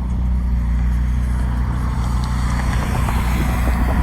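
Supercar engine running steadily at low revs, holding an even pitch without revving.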